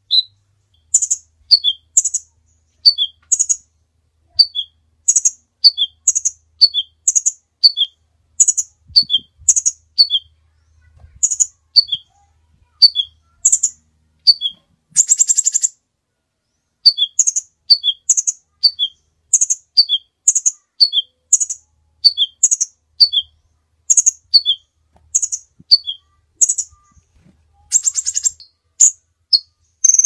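Crimson sunbird song: sharp, high chips in quick pairs, each a higher note dropping to a lower one, repeated over and over, broken by a short buzzy trill about halfway through and another near the end.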